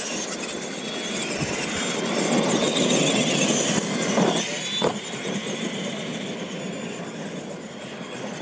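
Radio-controlled monster trucks racing on a dirt track: the motors and gearing whine as they speed up and slow down, and the big tyres scrabble over the dirt. A couple of sharp knocks come about four to five seconds in.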